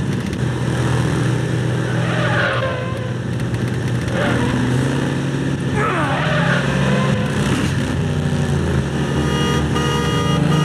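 Heavy truck engine running hard at highway speed, with dense road and tyre noise. A few sweeps fall in pitch as vehicles go by.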